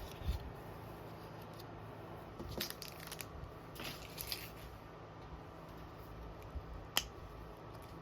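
Hands handling small crafting items and packaging: short bursts of crinkling plastic or paper about two and a half and four seconds in, a light tap at the start, and one sharp click near the end.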